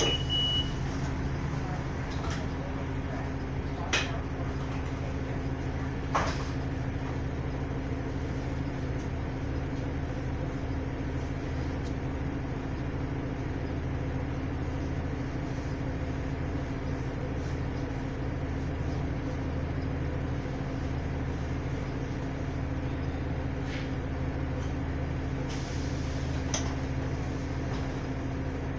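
Cabin drone of a city bus's engine running steadily, heard from inside among the seats. A short high beep sounds right at the start, and there are a couple of sharp clicks or knocks about four and six seconds in.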